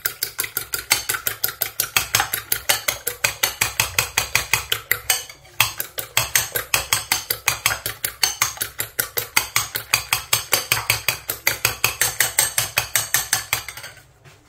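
Two eggs being beaten in a bowl for a French omelette, the utensil clicking quickly and evenly against the bowl at about five strokes a second, with one short pause about five seconds in.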